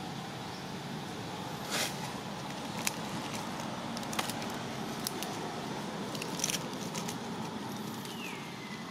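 Scattered dry-leaf crackles and rustles as macaques shift on the leaf litter, over a steady outdoor hiss. A short whistle-like call slides down in pitch near the end.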